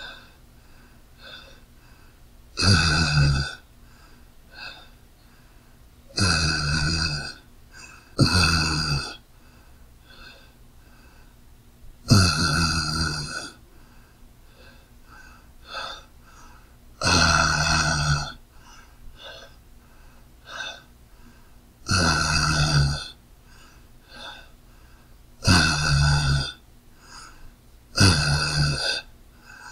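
A man's voice saying "ahh!" over and over: about eight short exclamations, each about a second long, a few seconds apart.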